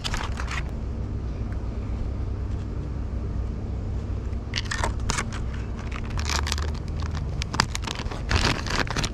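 Plastic lure packaging being handled: a clear plastic clamshell tray and a soft-plastic lure bag crinkling and crackling in short bursts, mostly in the second half, over a steady low rumble.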